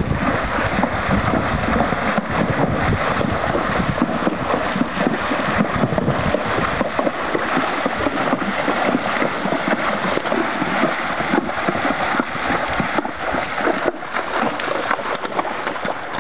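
A Missouri Foxtrotter horse splashing through a shallow river, its hooves churning the water in a dense, continuous rush of splashes. Wind buffets the microphone in the first few seconds, and the splashing eases slightly near the end.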